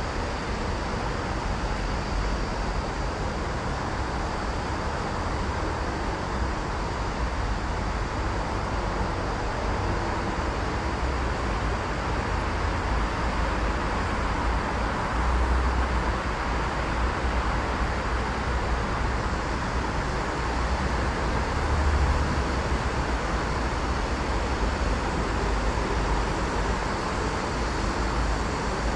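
Steady road traffic noise with a low rumble that swells slightly twice.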